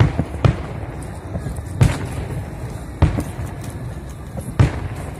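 Aerial firework shells bursting: about five sharp booms at irregular intervals of roughly half a second to a second and a half, over a steady low background rumble.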